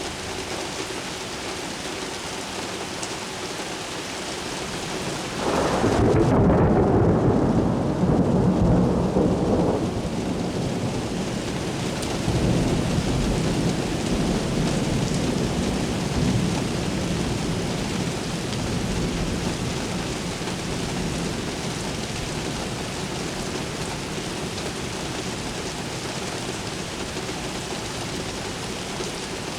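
Steady rain during a thunderstorm, with a roll of thunder starting about five seconds in. The thunder is loudest for about four seconds, then rumbles on and fades over the next ten seconds.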